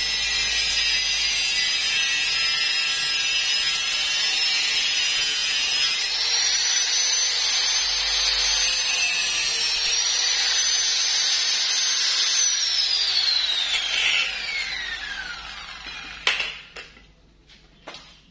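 Electric angle grinder with a cutting disc cutting through a metal pipe: a steady high whine over a grinding hiss, wavering a little in pitch under load. About two-thirds through it is switched off and the whine falls steadily in pitch as the disc spins down, then a sharp clatter on the concrete floor and a few lighter knocks.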